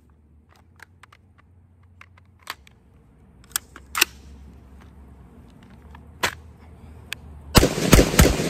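Scattered clicks and sharper metallic clacks of an AR-15-style rifle being handled, its magazine taken out and dropped on the grass about four seconds in. Near the end comes a louder burst of noise lasting under a second.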